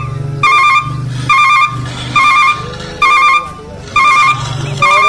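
Dance music with a trilled, ringtone-like hook that repeats a little faster than once a second over a bass pulse, with a gliding melody underneath.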